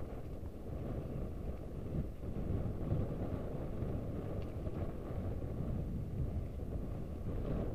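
Wind buffeting the microphone of a camera on a moving mountain bike: a steady, uneven low rumble.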